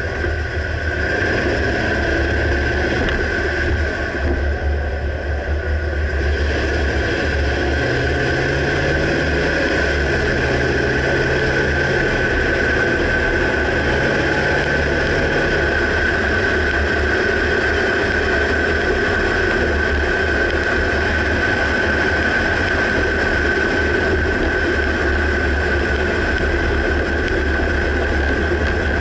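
2009 Dodge Ram pickup running, a steady drone of engine and road noise with a low rumble and a constant higher hum. No distinct clunk stands out.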